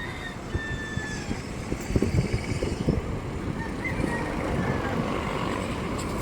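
Backhoe engine running, with an uneven low rumble and a few short high whistling tones.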